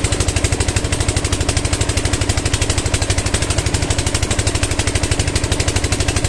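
Tubewell pump engine running with a fast, even chugging beat, over the steady rush of water gushing from the outlet pipe into the tank.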